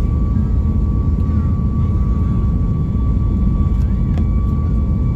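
Steady airliner noise: a constant low rumble of engines and airflow with a thin steady whine above it.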